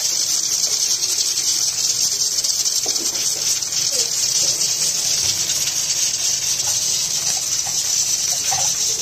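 A steady, high-pitched hiss, with a few faint clinks of kitchen utensils.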